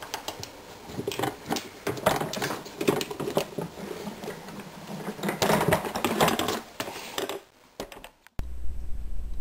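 Plastic knocks, clicks and rustling of a Shop-Vac's motor head being handled and taken apart, in quick irregular strokes. Near the end it cuts off abruptly to a steady low hum.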